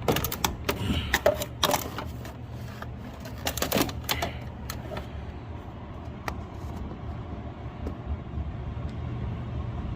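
Small metal clicks and taps of a socket and pliers working a loose belt-tensioner bolt by hand, coming quickly for the first few seconds and then thinning to a few faint ticks over a steady low hum.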